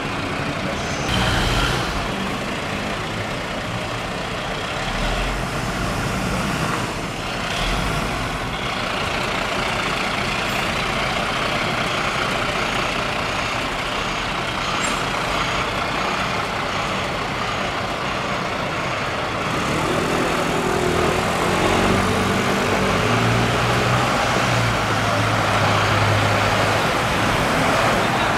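Diesel engine of a Mercedes-Benz Atego fire engine running at low speed as it manoeuvres, without siren, over street traffic noise. A low engine hum comes through louder from about two-thirds of the way in, as the truck nears.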